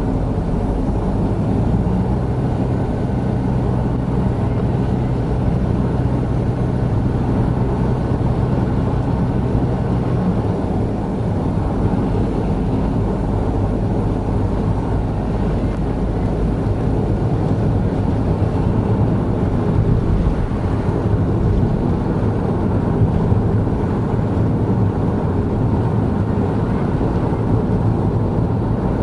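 Steady in-cabin road and engine noise of a Honda N-BOX Custom kei car, its 660 cc turbocharged three-cylinder engine cruising at highway speed. A low hum in the mix fades about ten seconds in.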